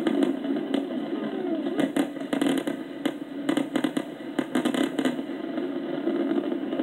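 A fireworks display going off: a rapid, irregular run of sharp cracks and pops, several a second, over a steady rumble, heard as played back through a computer's speaker.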